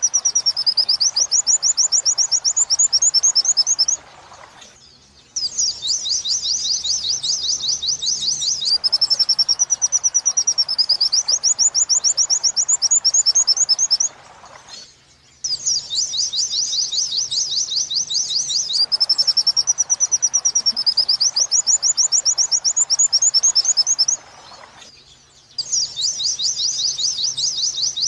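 Recorded white-eye (pleci) song in the 'wit-wit sambung kunti' style, played as a masteran for training cage birds: fast, high-pitched trilled chirps in phrases of about eight seconds, broken by short pauses and repeating alike.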